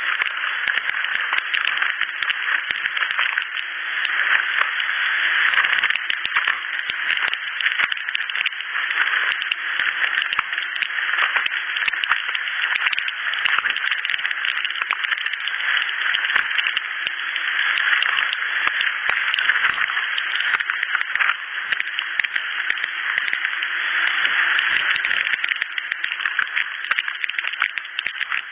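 Insect-like sound from a field recorder: a steady, dense, rattling buzz made of many fine rapid ticks, sitting in the upper-middle pitch range. The recordist counts it among unexplained insect sounds that she says resemble a house fly but should not be there at night.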